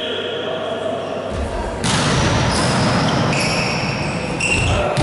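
Indoor volleyball play echoing in a large gym hall: the ball being hit and bouncing, with players' shouts, and a sudden louder burst of noise about two seconds in.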